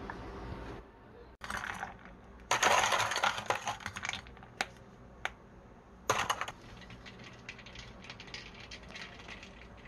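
Small hard objects clattering and clinking, like dishes and utensils being handled: a dense rattle of clicks about two and a half seconds in, two single sharp clicks, and another short rattle about six seconds in.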